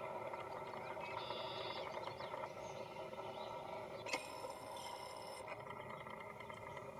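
Faint outdoor pond background: a steady low hum of ambient sound with scattered faint high chirps. A single sharp click about four seconds in is the loudest moment.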